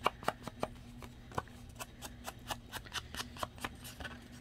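Round ink blending tool dabbed again and again against the edges of a paper card, inking them: a run of quick light taps, about four a second.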